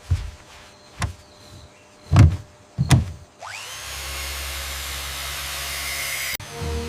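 Four heavy thumps, then a jet engine starting: a whine rises quickly into a steady rushing noise over a low hum, cut off suddenly near the end.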